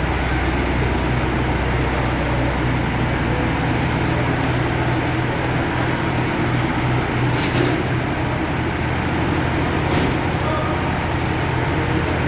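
Engine of heavy lifting machinery running steadily with a deep hum, with two short sharp knocks, the first about seven seconds in and the second a couple of seconds later.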